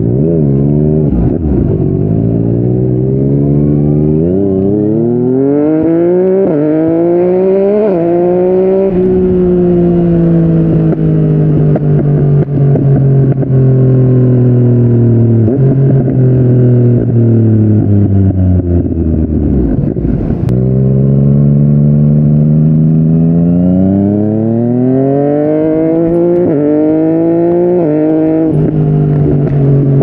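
Yamaha MT-09's inline-three engine through a Yoshimura R55 slip-on exhaust, accelerating through several quick upshifts: the pitch climbs and drops back at each shift. It then holds a steady cruise, eases off about two-thirds of the way through, and pulls through more quick upshifts near the end.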